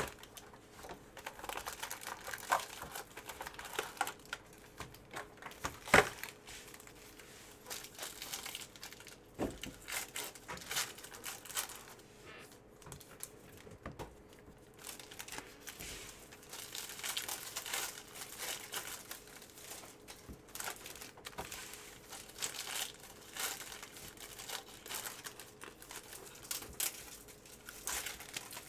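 Foil trading-card pack wrapper crinkling and tearing as it is opened by hand, in many sharp irregular crackles, with a louder crack about six seconds in.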